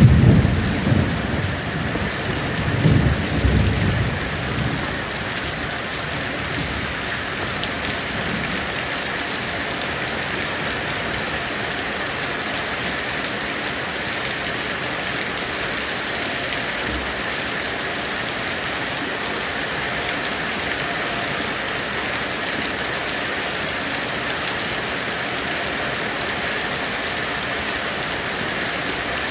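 Heavy rain falling steadily, with a roll of thunder rumbling in the first few seconds and dying away.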